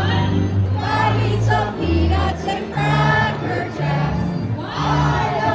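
Music with group singing over a bass line of held notes that change about every half second.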